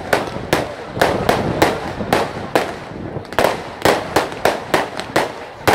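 Fireworks display: a fast, irregular run of sharp bangs, about three a second, with a brief lull a little past the middle.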